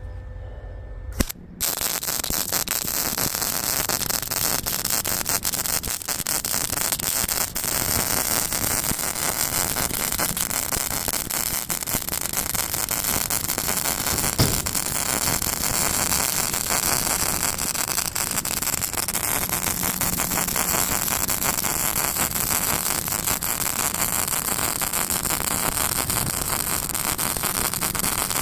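Lincoln 180 MIG welder running a long continuous weld on steel: a steady crackling sizzle full of sharp pops. It strikes suddenly about a second in and cuts off right at the end.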